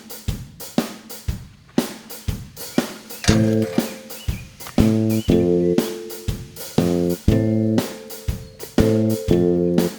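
Background music with a steady drum-kit beat, bass and guitar chords.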